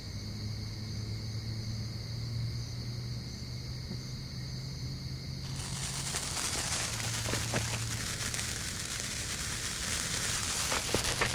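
A homemade firework igniting about halfway through and spewing sparks with a steady, dense hiss, with scattered crackles. Before it catches, crickets chirp steadily.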